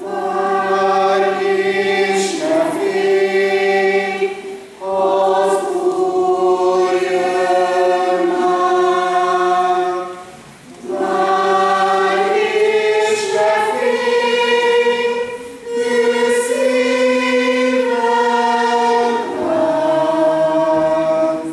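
Mixed church choir singing a hymn in sustained phrases, with short breathing pauses about every five seconds.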